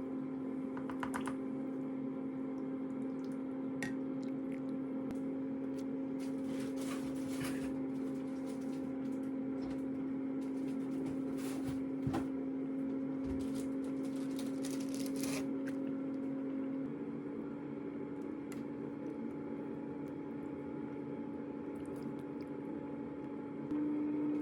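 A steady electrical hum from a kitchen appliance, with scattered light clicks and a knock about halfway through; the hum drops a little in pitch and level about two-thirds of the way in.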